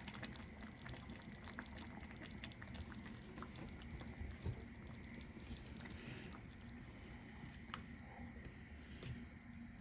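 Thai green curry with coconut cream bubbling faintly in a small saucepan, with many small pops and ticks.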